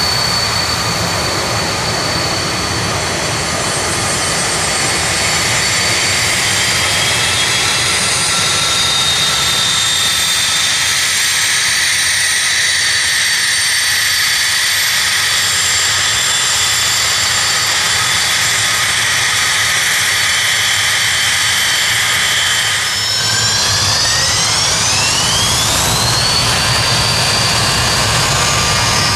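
Jet airliner's engines running with a steady whine over a rumble; toward the end the whine rises steeply in pitch over a few seconds and then holds, the engines spooling up as thrust is applied.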